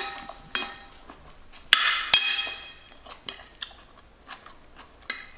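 A metal spoon clinking and scraping against a ceramic plate while scooping food. There are several sharp clinks that ring briefly: a few in the first two and a half seconds and one more near the end, with lighter taps between.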